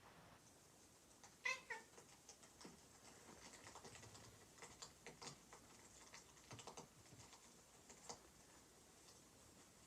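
A cat gives one short meow about a second and a half in, followed by scattered faint clicks and taps.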